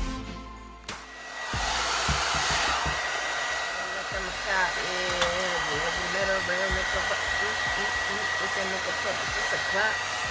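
Music for about a second and a half, then a handheld hair dryer switches on and runs steadily, with a high whine over the rush of air, blow-drying a wig install.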